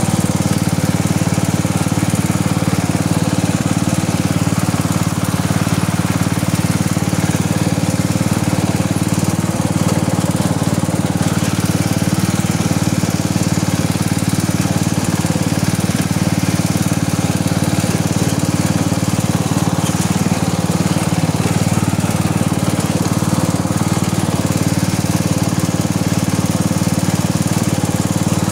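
Riding lawn mower's engine running steadily as the mower drives along a dirt and grass trail.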